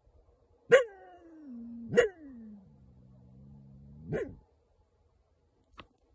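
A coyote giving bark-howls: two sharp barks about a second apart, each sliding down into a drawn-out, falling howl, then a third short bark about four seconds in.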